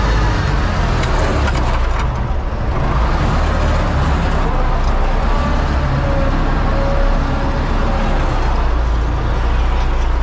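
Universal 650 tractor's four-cylinder diesel engine running steadily while pulling a seed planter across the field, heard from inside the cab.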